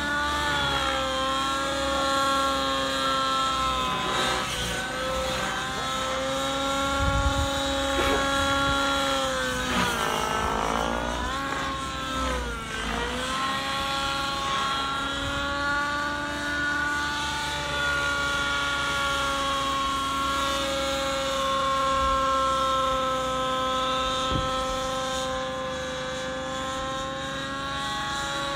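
Align T-Rex 700XN nitro RC helicopter in aerobatic flight: its glow engine and spinning rotor blades give a steady high-pitched whine. About ten seconds in the pitch dips and wavers for a few seconds under the load of a manoeuvre, then settles back.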